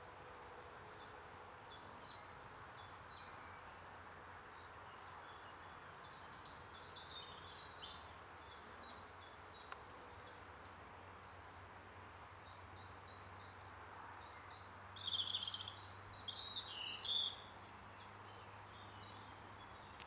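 Faint outdoor ambience with birds singing: runs of short, quick, evenly repeated high chirps, and two louder bursts of warbling song, about six seconds in and again about fifteen seconds in, over a steady low hiss.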